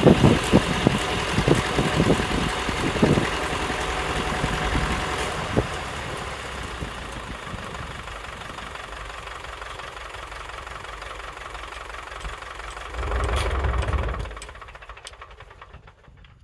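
Engine driving an antique sawmill's shafts and belting, with irregular heavy thumps over the first few seconds, then steadily dying down. A short louder rumble comes about 13 seconds in before the sound fades away.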